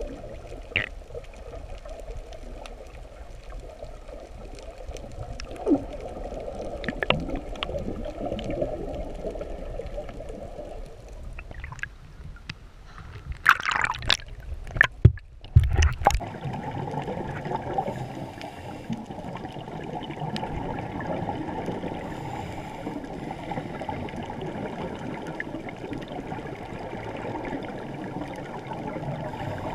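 Underwater water noise heard through a GoPro camera's waterproof housing, dull and steady, with scattered clicks. About halfway through come a few seconds of loud splashing as the camera breaks the water's surface, and then the steady underwater noise goes on.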